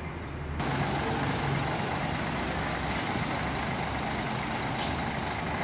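Diesel engine of a large tour coach running close by amid street traffic, with a short air-brake hiss about five seconds in.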